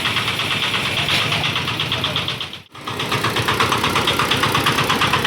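An engine running steadily at idle with a fast, even pulse. It drops out for an instant about halfway through.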